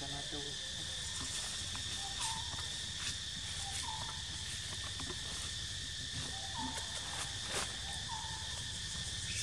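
Steady, high-pitched drone of insects, with a few short chirps rising out of it.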